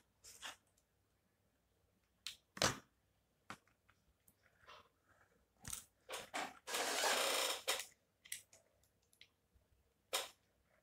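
Hands handling a smartphone and its small plastic parts: scattered clicks and taps, a sharper knock about two and a half seconds in, and a rustle lasting about a second past the middle, the loudest sound.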